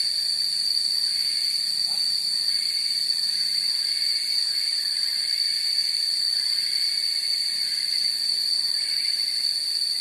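A steady, high-pitched insect trill, loud and unbroken, with fainter intermittent chirping pulses beneath it.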